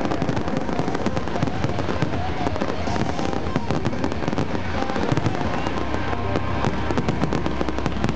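Fireworks finale: aerial shells bursting overhead in a dense, unbroken barrage of bangs and crackling.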